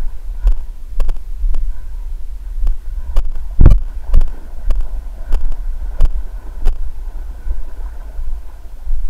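Footsteps through wet mud and shallow water at a walking pace, about two a second, the heaviest a little past a third of the way in, over a steady low wind rumble on the microphone.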